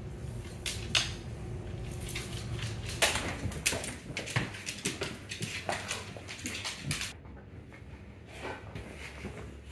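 A pit bull scrambling about with a large plush toy: many quick clicks and knocks of claws and paws on a hardwood floor, with rustles and thumps. It goes quieter about seven seconds in, with only a few soft knocks after.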